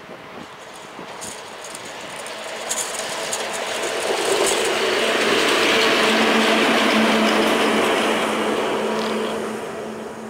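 ET22 six-axle electric freight locomotive running light and passing close by. Wheel and rail noise builds to a peak about six seconds in and then fades as it goes away, with a steady hum under it.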